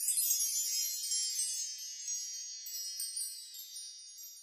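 A shimmering wind-chime sound: many high, bell-like tones struck together at the start, with a few more tinkles along the way, slowly dying away over about four seconds.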